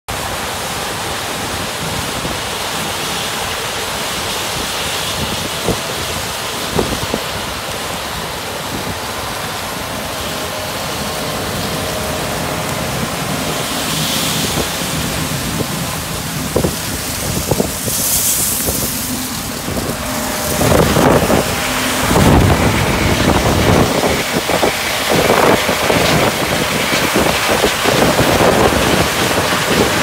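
John Deere S790 combine harvester and a tractor pulling a grain cart, working alongside each other in a corn field: a steady noise of machinery mixed with wind buffeting the microphone. From about twenty seconds in, it grows louder and rougher, with many short crackles.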